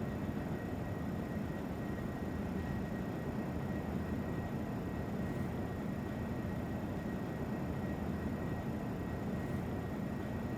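Steady low hum and hiss of background noise, with a faint high tone held throughout and no distinct events.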